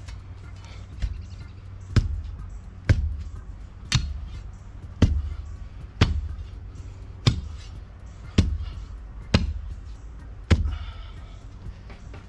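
A long steel digging bar stabbed down into packed dirt again and again, about once a second for some ten strikes, each a dull thud with a sharp click, breaking up the ground around a buried tree stump.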